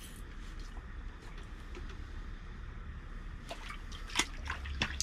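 Water splashing and dripping in an ice-fishing hole as a walleye is brought up to it on an ice rod, with a few sharp splashes about three and a half to five seconds in over a low steady hum.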